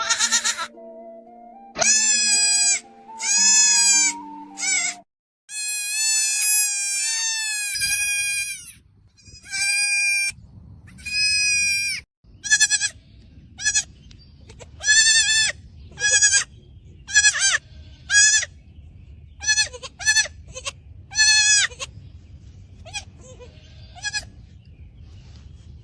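Baby goat bleating over and over in high calls: a long wavering bleat about six seconds in, then a quick run of short bleats that grow fainter near the end. Music plays under the first few seconds.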